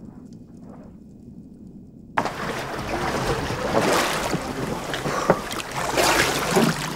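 A muffled low underwater rumble, then about two seconds in an abrupt switch to the open surface beside a dive boat: water slapping and splashing, with wind noise on the microphone.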